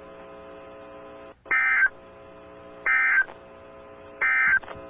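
Emergency Alert System end-of-message data bursts: three short, shrill two-tone digital squawks about a second and a half apart, marking the close of the tornado warning broadcast. A steady electrical hum from the receiver fills the gaps between them.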